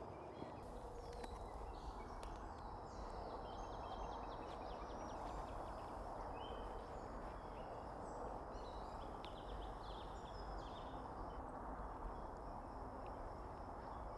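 Outdoor ambience: small birds chirping on and off over a steady, faint background hiss.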